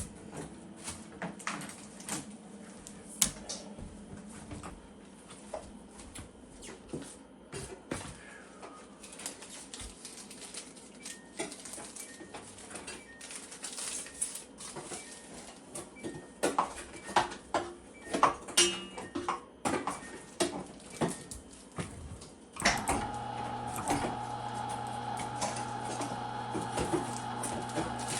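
Metal parts clinking and knocking at irregular moments, then about 23 s in an electric meat grinder, a Cabela's Carnivore, switches on and runs with a steady hum.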